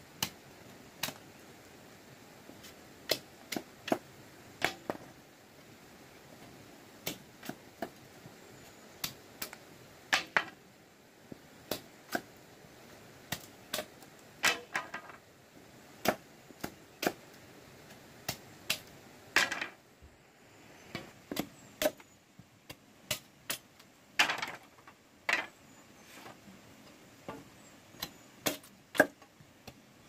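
A machete knocking into bamboo poles to split them into strips: irregular sharp cracks and knocks, a few drawn out into short crackling splits as the bamboo gives along its grain.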